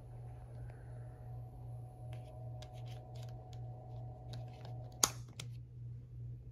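Red mushroom-head emergency stop button worked by hand: a few faint ticks, then a sharp click about five seconds in and a lighter click just after, over a steady low hum.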